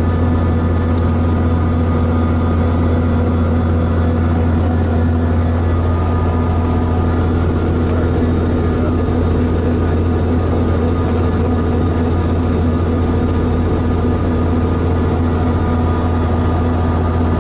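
Robinson R44 helicopter's six-cylinder Lycoming piston engine and rotor running steadily on the ground, heard from inside the cabin as a loud, even low hum with steady tones above it.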